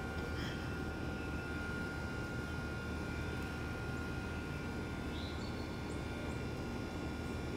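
Steady outdoor background rumble with a faint constant high whine, and a couple of faint short chirps.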